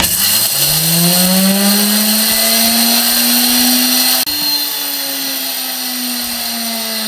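Electric dry spice grinder starting up and running with a loud motor whine and a hiss of whole spice seeds being ground to powder. The pitch rises over the first second and then holds steady. About four seconds in the sound cuts out for an instant, then runs on a little quieter, its pitch slowly sagging.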